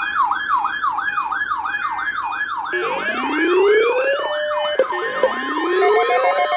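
Weather radio alert sirens. An electronic siren sweeps up and down about three times a second, joined about three seconds in by a slower rising wail that repeats, and near the end by a pulsed beeping. The receivers are being set off by a required weekly test of NOAA Weather Radio.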